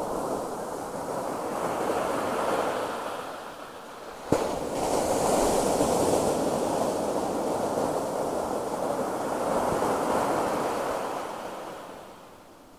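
Atlantic surf breaking and washing up the beach, swelling and fading in surges. A sharp click about four seconds in, just before a louder surge, and the surf dies down near the end.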